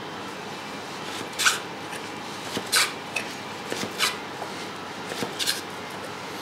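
A long kitchen knife slicing raw beef against a cutting board: a series of short, sharp slicing strokes, roughly one a second, as the block is cut into thin slices.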